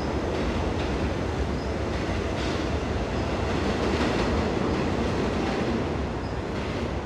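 A moving vehicle's steady rumble, with a few faint knocks.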